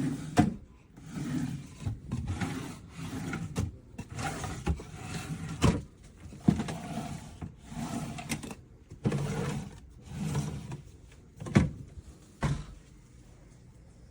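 A run of irregular rubbing and scraping noises, roughly one every second, with several sharp knocks and clicks among them.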